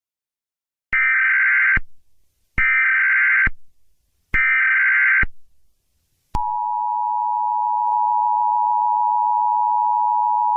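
Emergency Alert System tones announcing an alert: three identical short bursts of digital header data, each just under a second long, then about six seconds in the steady two-tone EAS attention signal, held for several seconds.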